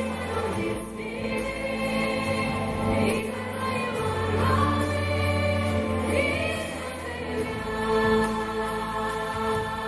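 A woman singing a slow song into a microphone over musical accompaniment of sustained chords.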